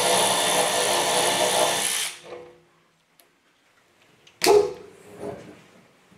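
A power drill-driver running steadily for about two seconds, undoing the fixings of a car's rear wiper motor, then spinning down and stopping. About four and a half seconds in, a single sharp knock with a short ring as the part is handled.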